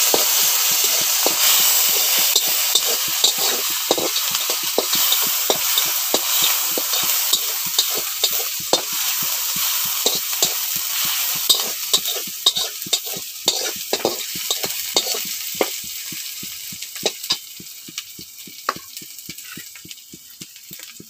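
Onions and garlic paste sizzling in hot oil in a metal kadai, stirred with a long steel spatula that scrapes and clicks against the pan. The sizzle dies down about halfway through, while the spatula clicks go on.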